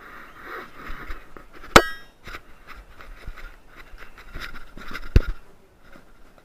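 Two sharp knocks about three and a half seconds apart, the first with a brief clinking ring, over faint rustling.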